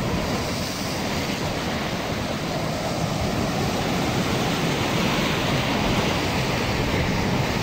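Sea surf breaking against rocks: a steady rushing wash of waves.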